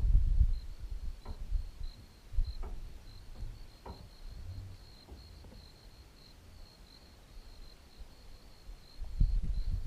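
Wind rumbling on the microphone, heavy at the start and again near the end and dying down between, with a faint steady high insect trill running underneath.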